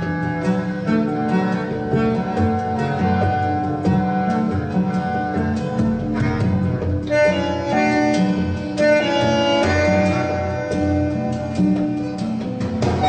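Acoustic instrumental music played from a vinyl LP on a turntable through a hi-fi system, sustained notes and chords changing throughout.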